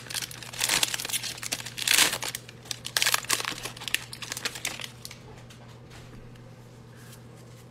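Foil wrapper of a football card pack crinkling and tearing as it is ripped open by hand, in bursts for about the first five seconds, then going quieter as the cards are slid out.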